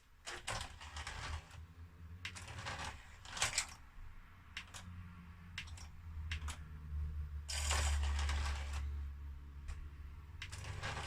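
Scattered clicks and scrapes of a CD player's loading tray and sled mechanism being handled and moved by hand, with a longer scrape of about a second past the middle, over a steady low hum.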